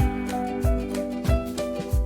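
Background music with a steady beat: sustained melodic notes over a regular bass-drum pulse.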